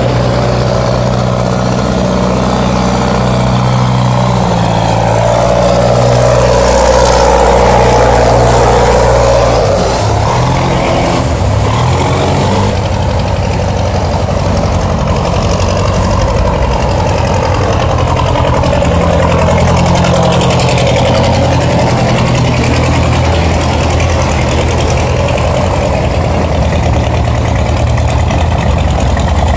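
Engines of motorised river boats running as a steel barge and then a coconut-laden cargo boat pass close by. The low engine note changes about a third of the way in and again past halfway, as one boat moves off and the next comes near.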